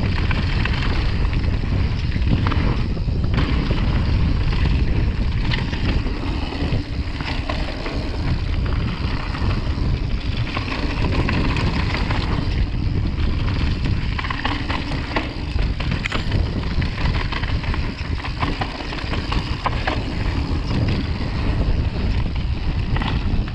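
Wind buffeting the camera microphone over the tyres rolling on a dirt trail, with frequent clicks and rattles from a mountain bike riding down a bike-park trail.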